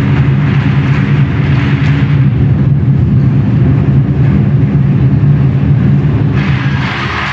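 Twenty-four Festive Drums ensemble: many large barrel drums beaten together in a loud, fast, continuous roll with a deep boom. A brighter, sharper layer joins in near the end.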